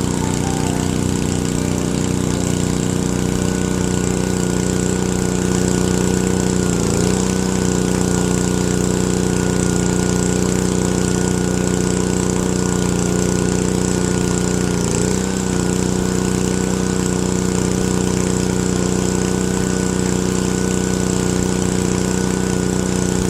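Engine driving the pipe-bursting pull, running steadily under load as the bursting head is drawn through the old sewer line, with brief dips in pitch about 7 and 15 seconds in.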